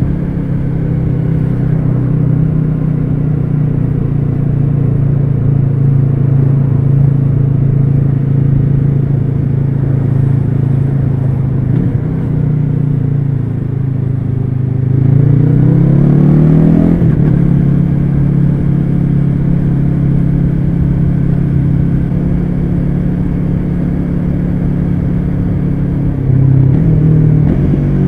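Yamaha R3 parallel-twin engine through an unbaffled Akrapovic carbon slip-on exhaust, under way at steady revs. About halfway through the revs rise, then drop back sharply as it shifts up a gear.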